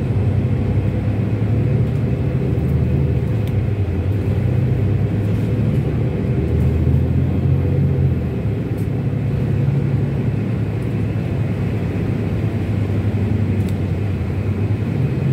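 Steady low rumble of a moving road vehicle's engine and tyres, heard from on board. The low drone rises and eases a little as it drives.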